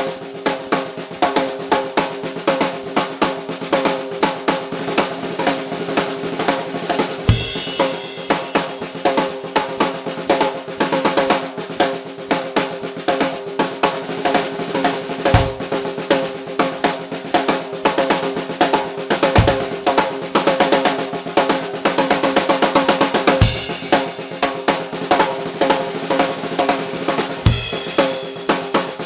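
Undampened custom 14" x 5.5" rock maple snare drum with a Remo Controlled Sound batter head, played in fast, dense rolls and ghost-note patterns, its shell and head ringing on between strokes. A handful of bass drum hits fall among the snare strokes, several with a cymbal crash.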